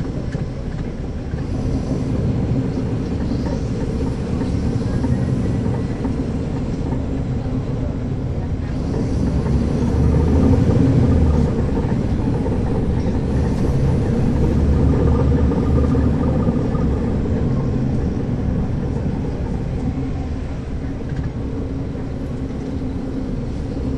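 Caterpillar C13 ACERT inline-six diesel of a 2009 NABI 40-SFW transit bus, heard from the rear seats as the bus drives along. The engine runs steadily, growing louder twice, about ten and again about fifteen seconds in.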